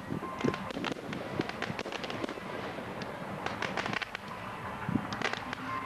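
Fireworks display going off: a rapid, irregular run of bangs and crackles from bursting aerial shells, thickening into dense clusters around the middle and again near the end.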